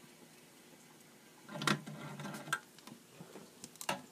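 Metal handling noises from a Wilesco D5 toy steam engine: its solid-fuel burner tray is slid out of the firebox with a short scraping rub about one and a half seconds in, then a couple of sharp metallic clicks near the end.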